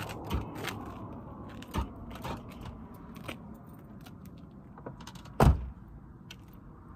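Minivan driver's door shut with a solid thump about five and a half seconds in, after a few lighter knocks and clicks as someone gets out and handles things at the open door.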